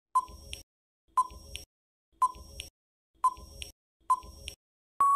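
Quiz countdown timer sound effect: five short beeps, one a second, as the timer counts down from five to one, then a long steady beep starting right at the end as time runs out.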